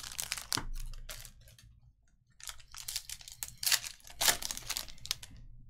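A foil trading-card pack wrapper crinkling and tearing as it is ripped open by hand. The rustling comes in two bouts with a short pause between.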